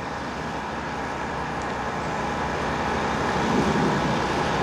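Steady outdoor background noise, a low rumble with hiss, slowly getting louder.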